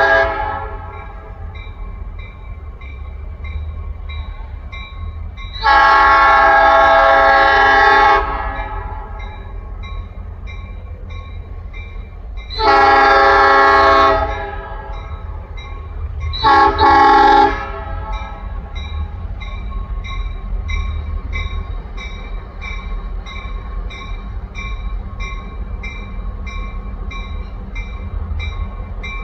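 Diesel locomotive horn (a Grand Trunk Western GP38-2) sounding for a crossing: a long blast about six seconds in, a second long blast around thirteen seconds, then two short blasts. Under it a low rumble runs throughout, with a crossing bell dinging steadily.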